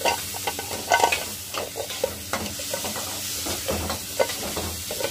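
Irregular clattering and knocking of ginger and garlic pieces in a steel mixer-grinder jar with its lid held on, over a steady hiss.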